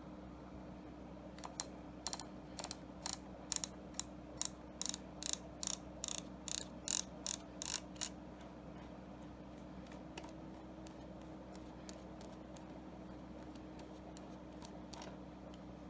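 Ratchet-like mechanical clicking, about two sharp clicks a second for some six seconds, then a few faint scattered clicks, over a low steady hum.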